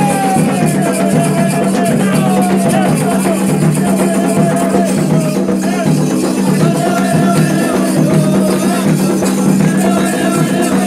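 Candomblé ritual music for Xangô: voices singing over a steady beat of shakers and percussion, running without a break.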